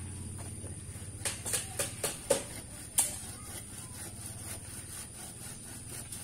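A low, steady engine hum that fades away about two seconds in, followed by a handful of short, sharp clicks and knocks.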